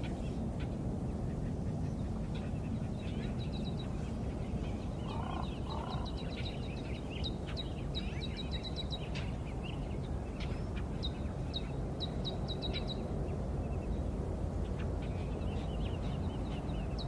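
Birds chirping in quick runs of short, high notes over a steady low rumble of outdoor ambience.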